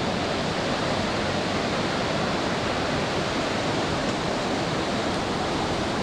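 Ocean surf washing onto a shallow sandy beach: a steady, even hiss of breaking water with no single wave standing out.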